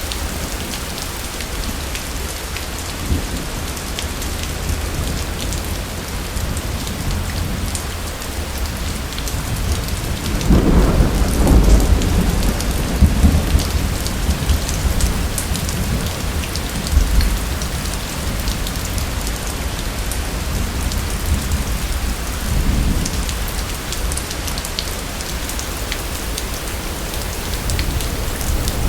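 Thunderstorm: steady heavy rain with rolling thunder. A long rumble swells about a third of the way in and is the loudest part, and lighter rumbles follow twice later.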